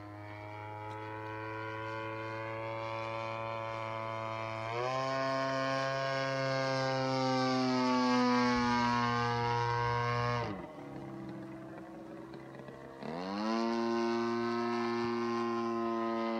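Radio-controlled model aircraft's engine buzzing in flight. Its pitch steps up and it gets louder about five seconds in; about ten and a half seconds in the pitch drops sharply and it goes quieter, then it climbs back up to a steady buzz about two and a half seconds later.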